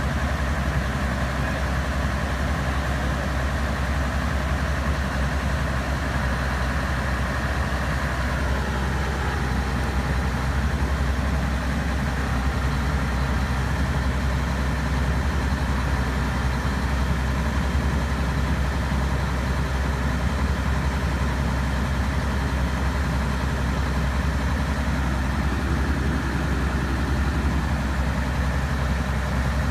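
Diesel engines of a railway track-construction train's maintenance machines running steadily with a deep, even hum.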